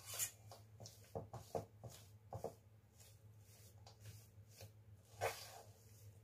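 Faint, irregular scraping and squishing strokes of a spoon working thick chocolate cookie dough in a stainless steel mixing bowl, with a slightly longer scrape about five seconds in.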